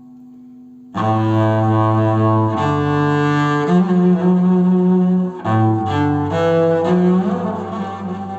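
Solo cello bowed in a Turkish Uşşak makam taksim, an unmetred improvisation. A previous note rings out faintly for the first second, then slow held notes follow, mostly stepping upward. There is a short break about five and a half seconds in, and the last note wavers and fades near the end.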